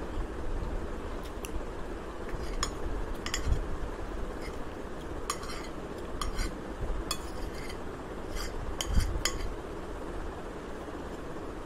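A steel spoon scraping and clinking against a ceramic plate as fried rice is scooped up: a scatter of sharp clinks between about one and nine seconds in, with a louder knock near the end of them, over a steady low background hum.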